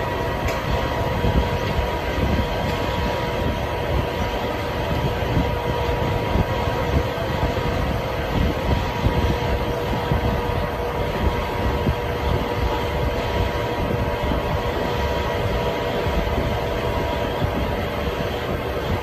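Steady mechanical rumble with a constant hum running through it, unbroken throughout.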